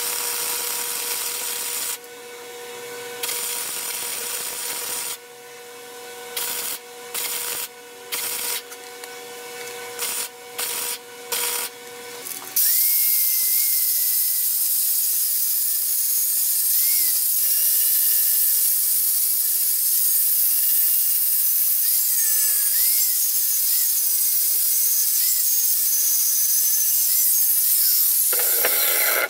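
Arc welding in a series of short runs, each burst starting and stopping every second or two over a steady hum. About twelve seconds in, an angle grinder takes over, grinding steel on the vise continuously with a steady high whine, louder than the welding, and it shuts off just before the end.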